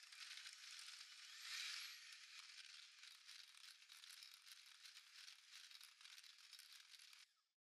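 Faint sound of an electric hand mixer running, its wire beaters churning creamed butter and egg in a glass bowl with a steady crackly rattle. It is a little louder about a second and a half in and cuts off near the end.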